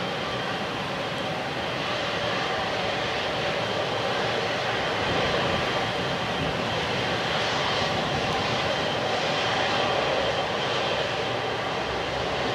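Boeing 777's twin GE90 turbofan engines running at low taxi thrust as it taxis closely past: a steady jet rumble with a whine, growing slightly louder as it approaches.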